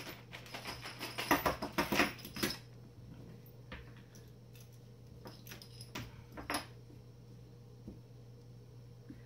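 A small plastic bag of hardware crinkling and rustling as it is opened and handled, then several separate light clicks as small metal screws and parts are picked out and set down on the table.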